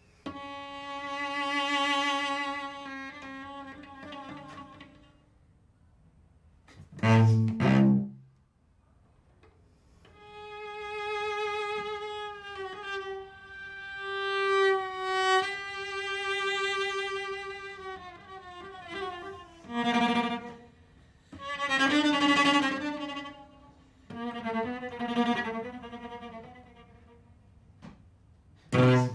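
Solo cello, bowed, playing slow sustained notes in phrases with short pauses between them. Brief loud, low bowed notes break in about seven seconds in and again near the end.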